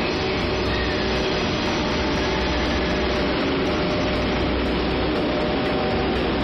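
EF81 electric locomotive standing at the platform, giving off a steady mechanical hum and rushing noise with no breaks.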